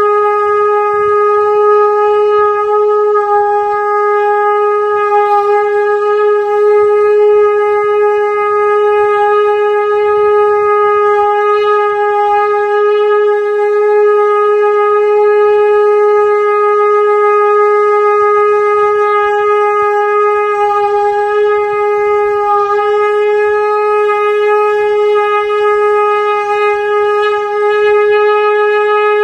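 Conch shell (shankh) blown as one long, unbroken, steady note, held without any pause for breath.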